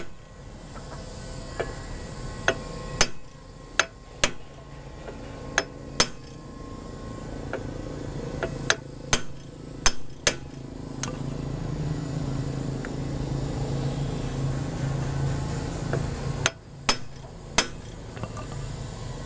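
Hammer blows on a steel pipe used as a drift, driving a new ball bearing into the front wheel hub of a Bajaj RE three-wheeler: sharp metal knocks, singly and in pairs, with pauses between groups. A low engine drone swells in the background through the middle of the stretch.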